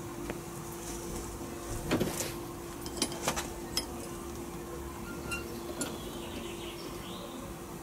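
Steel on steel: a handful of sharp clinks and knocks as a bent piece of rebar held in locking pliers is handled against the bench vise and a steel plate, most of them between about two and four seconds in. A steady low hum runs underneath.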